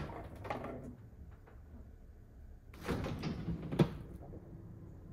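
Refrigerator door pulled open, then about three seconds in the plastic vegetable crisper drawer slid out on its runners, ending in a sharp knock as it reaches its stop.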